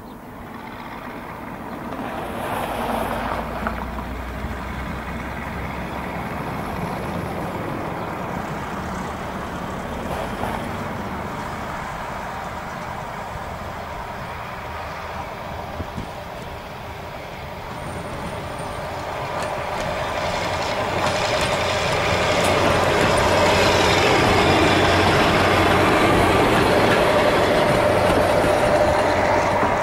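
The diesel engine of a 280 hp Walker railmotor running as the railcar approaches and passes close by. It is at its loudest in the second half, with a steady tone over the engine noise near the end.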